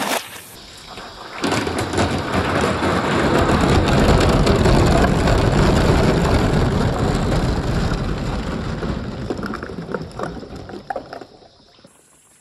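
A mass of marbles rolling and clattering down a marble run in a dense rumbling rush, after a short lull near the start. It thins into scattered clicks of the last few marbles and dies away near the end.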